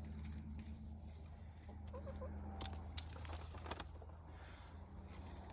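A chicken clucking softly three times about two seconds in, followed by a few sharp clicks and knocks, over a low steady rumble.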